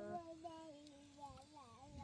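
A held, evenly pitched tone breaks off just after the start. A faint, high, wavering voice-like sound follows for about a second and a half, sliding up and down in pitch like humming or a whine.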